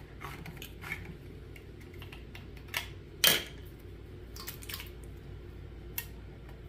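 Handheld can opener clicking as it finishes cutting a small tin can, then a sharp clatter about three seconds in as the opener is set down on the stone countertop, followed by a few light clinks as the can is tipped over a stainless steel mixing bowl.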